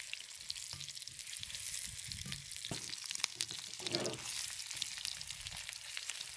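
Thin slices of marinated beef sizzling and crackling in hot oil in a wok, with many small pops. A slotted spatula scrapes and pushes the meat across the pan a couple of times around the middle.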